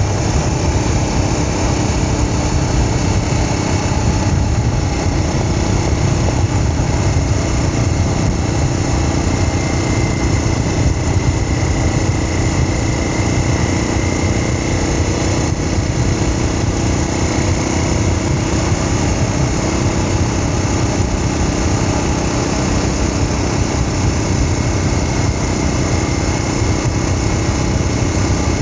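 Small vehicle engine running steadily at an even pace, under a constant low rumble.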